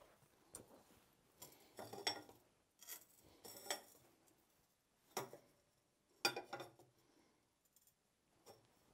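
A hot steel bar is levered around a pipe held in a vise with a bending fork, giving scattered metal clinks and scrapes where the fork and bar hit the pipe. The sharpest come about two seconds and about six seconds in.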